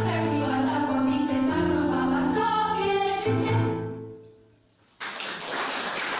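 Girls' vocal ensemble singing with musical accompaniment, the last chord fading out about four seconds in. After a moment of near silence, audience applause starts suddenly about five seconds in.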